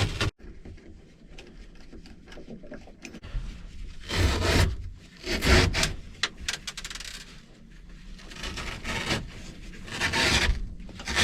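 Rough scraping and rubbing against the fiberglass cabin headliner as old carpet is worked off it, in about five bursts with quieter stretches between.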